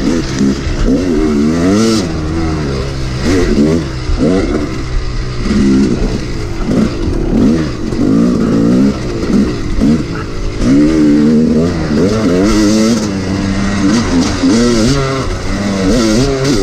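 Yamaha YZ250 two-stroke dirt bike engine ridden hard, its pitch climbing and dropping over and over as the rider works the throttle through the gears.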